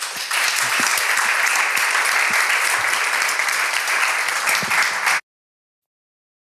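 Audience applauding steadily, the sound cutting off suddenly about five seconds in.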